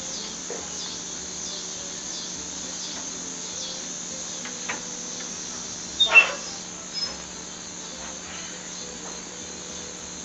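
Insects, likely crickets, chirping steadily over a low steady hum, with a few sharp knocks, the loudest about six seconds in.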